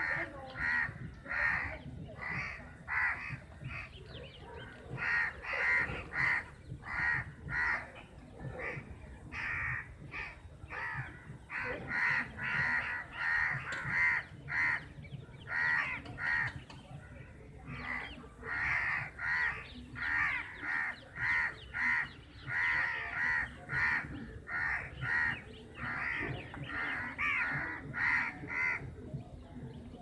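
Crows cawing over and over, several birds calling in quick succession at about two caws a second, with a couple of brief lulls.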